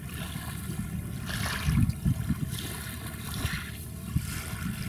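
Small waves lapping and splashing at the water's edge, swelling a couple of times, over an uneven low rumble.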